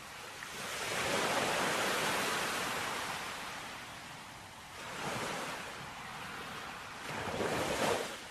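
Rushing outdoor ambient noise with no steady tone, swelling and fading: loudest a second or two in, again briefly about five seconds in, and once more near the end.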